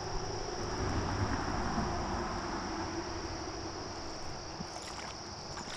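Steady outdoor background of a low rumble and soft hiss, with a constant high-pitched drone of insects and no distinct event.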